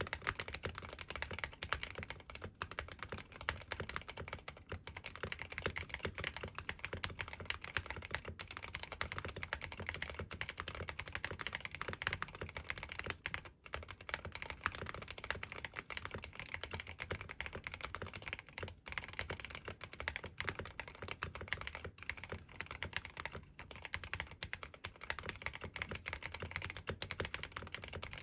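Continuous fast typing on a Drop ALT 65% mechanical keyboard with KTT Kang White linear switches and MT3 keycaps, modded for a deep, thocky sound (tape mod, Holee mod, filled case, lubed stabilizers). Dense key clacks with a few short pauses, one about halfway through.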